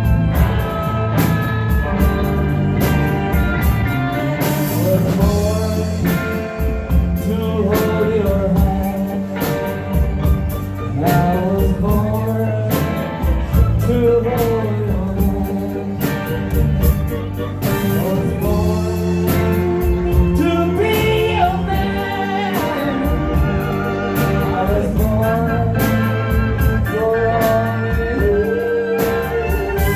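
Live band music with a singer carrying the melody over a steady beat.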